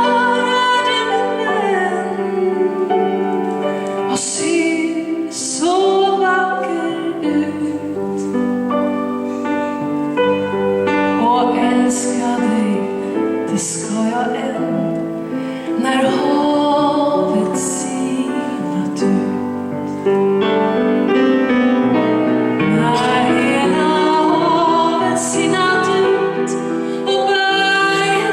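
A woman singing a slow Swedish ballad in a trained voice with vibrato, accompanied by piano, in a church's resonant acoustics.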